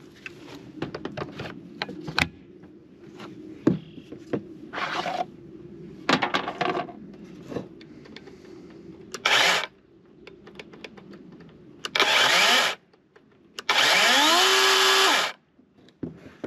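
Clicks and knocks as a battery is slid onto a DeWalt DCCS620 20V brushless cordless chainsaw and the saw is handled. Then the chain is run briefly with no load, twice near the end: first a short blip, then about a second and a half where the motor spins up with a rising whine, holds steady and cuts off.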